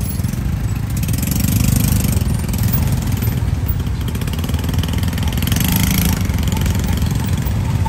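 Tuk-tuk engine and the motorbikes around it running in slow, stop-and-go city traffic, a steady low rumble heard from the passenger seat. A hiss of passing traffic swells briefly twice, about two seconds in and again about six seconds in.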